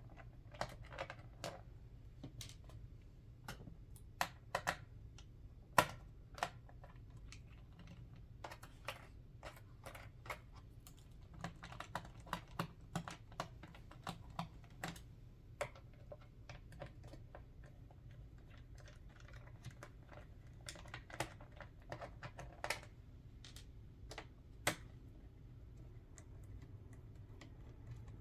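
Irregular light clicks and taps of a small screwdriver removing the bottom-cover screws of an MSI GF63 Thin laptop, with the laptop being handled; the sharpest click comes about six seconds in.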